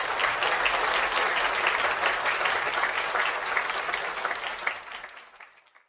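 Audience applause, many people clapping, fading out over the last second.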